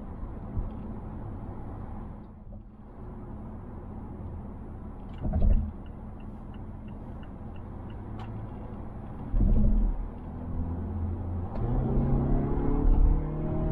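Cabin noise inside a 2020 Mazda Atenza (Mazda6) with the 2.5-litre four-cylinder at expressway speed: steady road and tyre rumble, with two heavy low thumps about five and nine seconds in and faint regular ticking between them. Near the end the engine note rises as the car accelerates.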